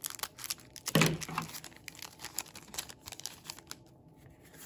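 Foil booster pack wrapper crinkling and tearing open, then trading cards being pulled out and handled, with a louder crackle about a second in.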